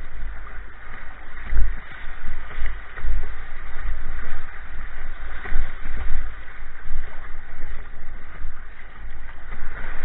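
River water rushing and splashing against the bow of a kayak running a choppy riffle, with heavy, uneven low rumbling on the microphone.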